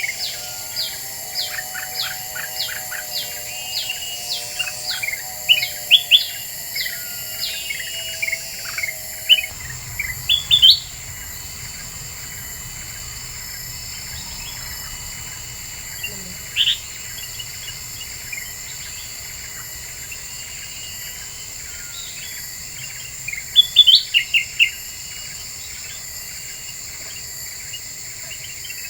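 Kutilang emas (bulbul) lure calls: a quick run of sharp, loud chirps over a lower warbling phrase for about the first third, then only scattered short calls, a burst near the third mark, a lone call in the middle and a tight cluster about four-fifths in. A steady high insect-like hiss runs underneath.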